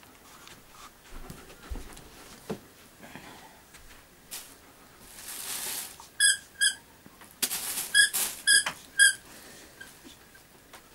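A dog's toy squeaker being bitten by a dog, squeaking five times in two quick groups, with rustling as the dog noses through the torn toy.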